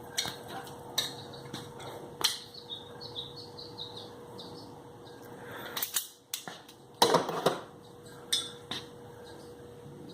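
Metal clinks and knocks from handling a steel flat-bar strip being bent into a handle, with a louder clatter of metal about six to seven seconds in. A faint steady hum runs underneath.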